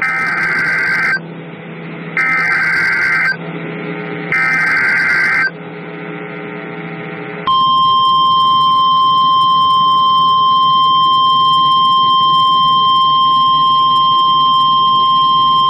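Emergency Alert System SAME header: three warbling digital data bursts, each about a second long with a second's gap, encoding a flash flood warning. About halfway through, NOAA Weather Radio's warning alarm tone begins, one steady high pitch held to the end, over a low hum.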